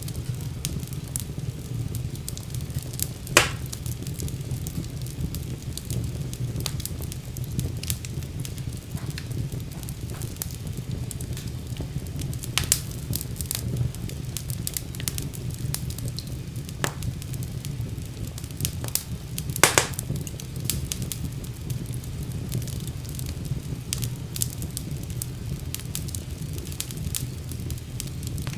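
Wood fire crackling in a fireplace: a steady low background of burning with frequent small snaps, and two louder pops, one a few seconds in and one about two-thirds of the way through.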